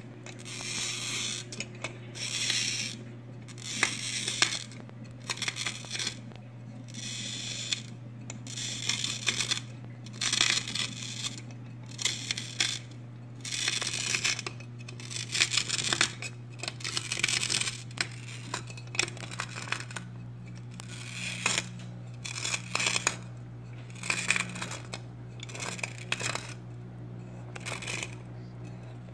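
Glass beer bottle being scored in a bottle cutter, turned by hand so the cutting wheel scratches around the glass. It comes as a long series of short, gritty scratching strokes, each a second or less, over a steady low hum.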